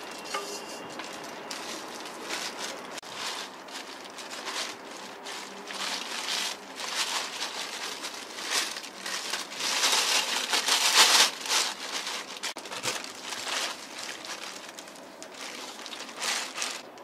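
Hands rubbing coarse salt into raw pork ribs to dry-cure them: a gritty rubbing with many small crackles from the salt grains against meat and bone, in uneven strokes, loudest around the middle.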